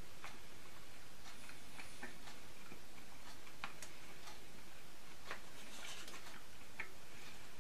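An eating utensil clicking and scraping in black plastic frozen-dinner trays during a meal: a handful of light clicks at irregular intervals, over a steady background hiss.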